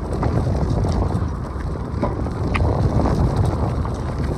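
Heavy rain coming down with wind buffeting the microphone: a steady low rumble and hiss with scattered sharp taps of drops.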